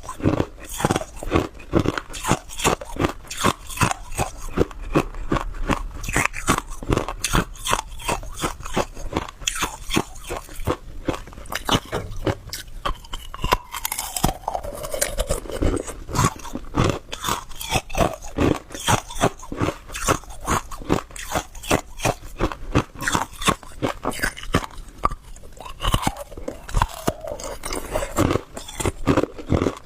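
Hard ice being bitten and chewed close to the microphone: a continuous run of sharp crunches, several a second.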